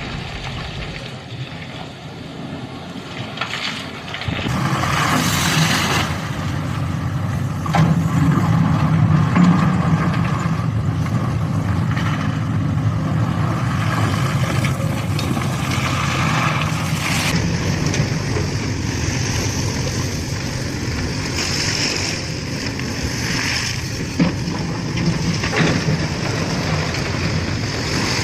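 Hydraulic excavator's diesel engine running under load, a steady low drone that gets louder about four seconds in. A few sharp knocks sound over it.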